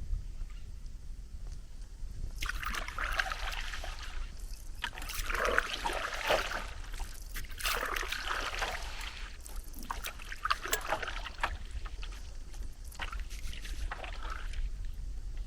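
A paddle dipping and pulling through the water as a small boat is turned. Each stroke makes a splashy swish, about every two to three seconds, over a low steady rumble.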